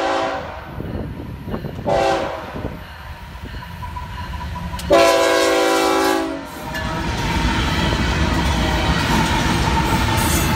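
Florida East Coast GE ES44C4 locomotive's multi-chime air horn sounding the end of a grade-crossing signal: a long blast cutting off just after the start, a short blast about two seconds in, and a final long blast from about five to six and a half seconds. Then the locomotives pass close by with a steady, loud noise of diesel engines and wheels on rail.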